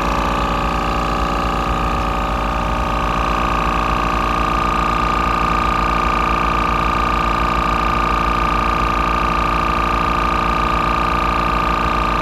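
Iker two-cylinder portable air compressor switching on and running steadily with a constant whine, inflating a car tire toward a set pressure of 35 psi.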